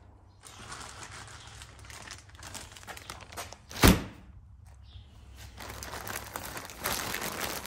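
Plastic packaging crinkling as a bagged wiring harness kit is handled, with one sharp, loud thump about four seconds in.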